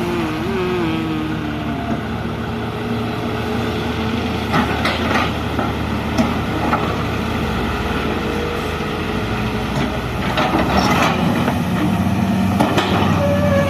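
Excavator's diesel engine running steadily under work, with a wavering whine above it and several sharp metallic knocks now and then.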